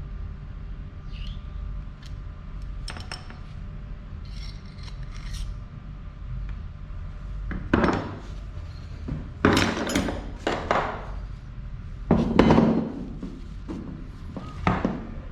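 Metal hand tools scraping, rubbing and knocking against the parts of a flat mountain-bike pedal as its spindle and internals are prised out. There are a few faint ticks at first, then several loud, short scrapes in the second half, over a steady low hum.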